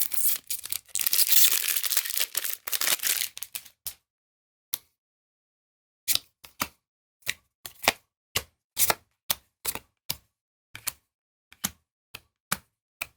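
Foil booster-pack wrapper crinkling and tearing for about four seconds, then a run of short, sharp card snaps, roughly one or two a second, as trading cards are handled one at a time.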